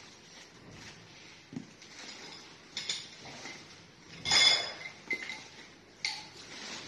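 Plastic-wrapped playard frame parts being handled: plastic packaging rustling, with scattered knocks and clinks of the frame pieces, the loudest a ringing clink about four and a half seconds in.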